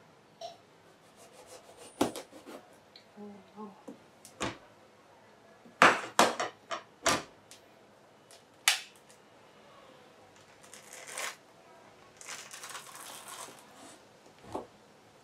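Kitchen knife and a large pomelo being handled on a plastic cutting board: a string of sharp knocks and taps as the thick rind is cut. Later, rustling and tearing as the rind is pulled off the fruit by hand.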